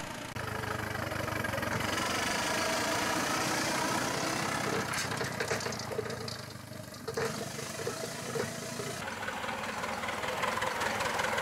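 Miniature steam lorry running as it hauls a wagon of passengers, a steady mechanical sound. About nine seconds in, the sound changes to a 7¼ in gauge miniature steam locomotive working with its train.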